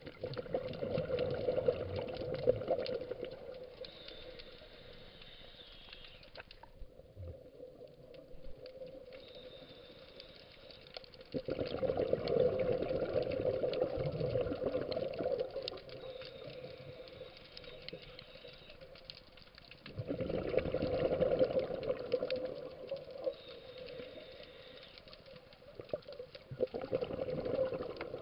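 Scuba diver's exhaled bubbles rushing and gurgling out of the regulator in four bursts about eight seconds apart, one per breath, with quieter stretches in between.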